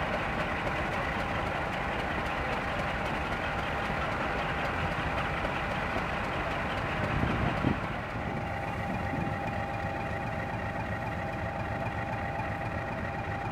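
Class 50 diesel-electric locomotive's English Electric 16-cylinder engine idling at a standstill: a steady engine drone with a steady whine above it.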